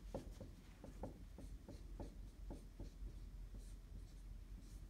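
Dry-erase marker writing on a whiteboard: a faint run of short, irregular strokes as an equation is written out.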